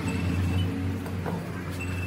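Steady low hum with a few faint metallic clinks as metal air brake valve parts are handled on a workbench.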